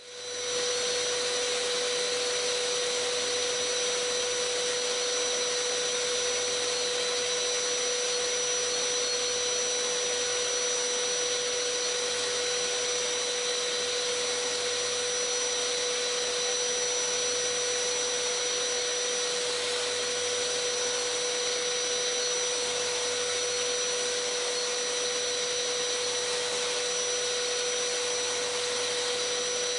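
A shop vacuum drawing dust through a surface grinder's extraction hood, running together with the Eagle Mk1 surface grinder as its wheel takes light passes over steel parallels. The sound is a steady whine with a constant hum-like tone over an even hiss, unchanging in level.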